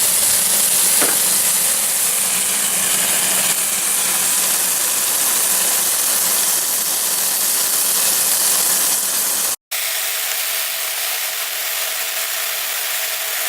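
Sliced plums caramelizing in coconut oil and sugar in a frying pan, sizzling steadily. The sound cuts out for an instant about ten seconds in, then carries on a little quieter.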